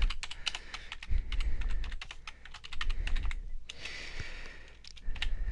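Typing on a computer keyboard: a run of quick key clicks, with a brief pause a little past halfway.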